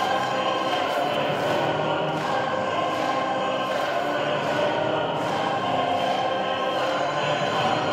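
Figure skating free-skate program music played over the rink's sound system, a choir singing sustained notes.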